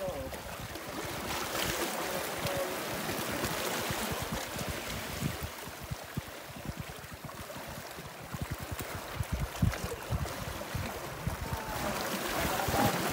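Waves washing on the shore, a steady noisy wash, with a run of low rumbling bumps in the middle.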